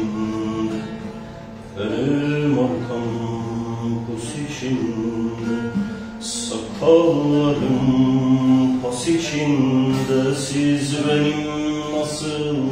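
A man singing a Turkish folk song (türkü) in long, held, wavering phrases, accompanied by a plucked bağlama (long-necked saz). The voice eases off about a second in and comes back strongly at about two seconds.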